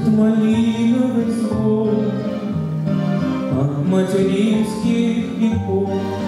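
A grand piano plays a slow song accompaniment while a man sings into a microphone.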